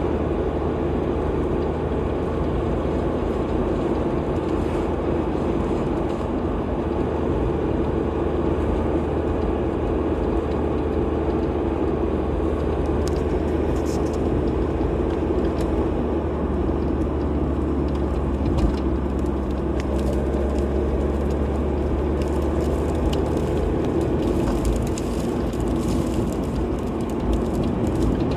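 Car driving at a steady speed: continuous low engine hum and tyre-on-road noise, with faint light ticks in the second half.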